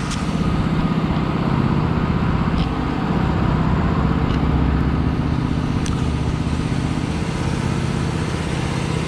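Small go-kart engine running steadily, its pitch wavering slightly up and down as the throttle changes.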